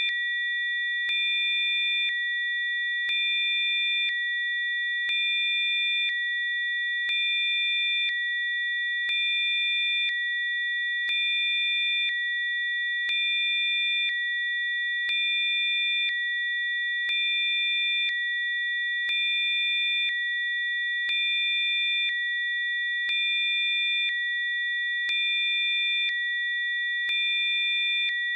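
Generated Rife-frequency sine tones: a chord of several steady high pitched tones held without a break. A fainter low tone and another tone switch in and out about every second, each change marked by a faint click, so the level lifts slightly every two seconds.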